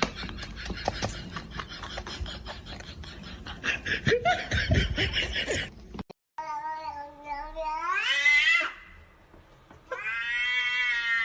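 Domestic cat yowling: one long yowl rising in pitch, then after a short pause a second drawn-out yowl. Before that comes a stretch of rustling and clicking noise that cuts off suddenly about six seconds in.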